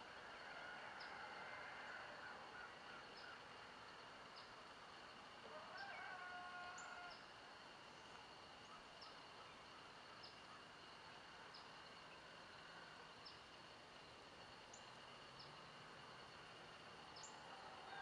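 Faint dawn nature ambience: a steady high insect drone, with a bird's sharp high chip notes repeating roughly once a second. About six seconds in, a brief lower call with several stacked tones lasts about a second.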